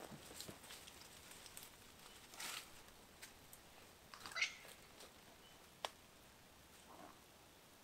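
Faint, scattered rustles and crackles of dry sticks and leaf litter being handled, with a brief squeak about four seconds in and a single sharp snap near six seconds.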